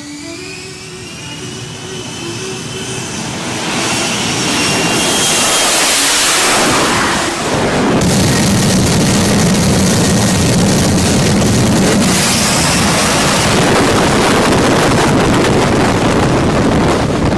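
F-35B jet engine with a whine rising in pitch as it spools up, then loud, steady jet noise from about four seconds on.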